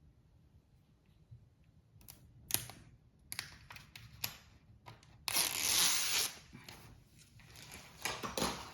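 Hands working on a rubber fridge door seal, making scattered clicks and knocks. About five seconds in comes a second of loud rustling and scraping.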